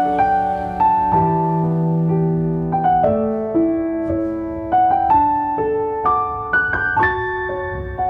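Background piano music: a slow melody of single notes over held chords.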